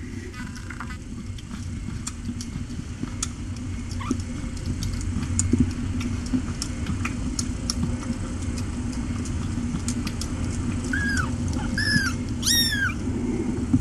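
Very young kittens mewing: three short, thin mews near the end, each rising then falling in pitch. Underneath runs a steady low hum with faint clicks and rustles of the kittens moving on the fleece bedding.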